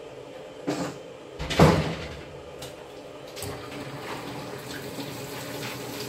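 Washing machine running with a steady hum, with two knocks about a second apart near the start, the second one louder, and a few lighter clicks after.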